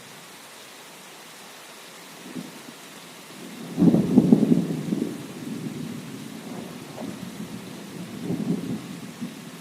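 Steady rain hissing, with a rumble of thunder that breaks in sharply about four seconds in, is loudest for about a second, then rolls on more quietly and swells again near the end.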